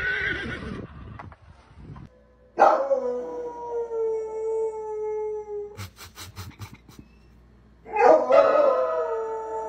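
Dog howling at an upright piano, its front paws on the keys: one long howl of about three seconds that sinks slightly in pitch, a quick run of sharp knocks, then a second loud howl with several pitches at once near the end.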